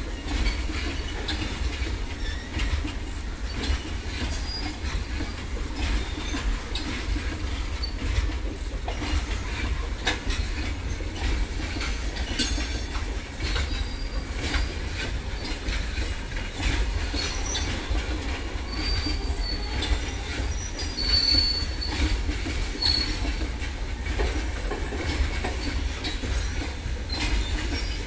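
Container freight train's wagons rolling past: a steady low rumble with occasional wheel-on-rail clicks and brief high-pitched wheel squeals, more of them in the second half.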